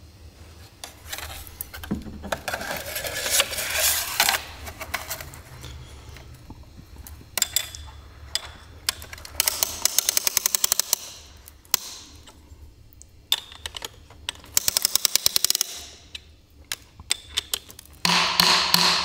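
Ratchet of a piston ring compressor clicking in two quick runs as it is tightened, squeezing the rings into the piston grooves so the piston can slide into its cylinder bore. Between the runs there is scraping and handling of metal parts, and a louder clatter near the end.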